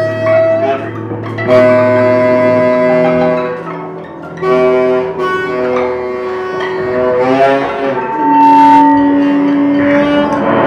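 Free improvised music played live: long held pitched notes with rich overtones, changing pitch every second or two, with a wavering slide in pitch about two thirds of the way through.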